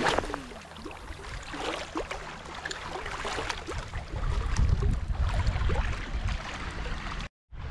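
Shallow seawater splashing and sloshing around the legs of someone wading, with many short splashes and gurgles over a low rumble of wind on the microphone.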